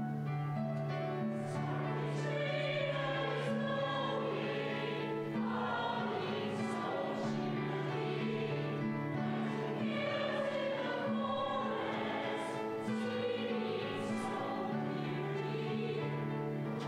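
Mixed church choir of men and women singing in parts, with steady low accompaniment notes held underneath.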